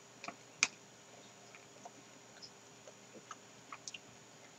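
Faint, scattered crunching clicks of a mouthful of Giant Corn cookies & cream ice cream cone being chewed, its crisp wafer cone and chocolate pieces breaking between the teeth.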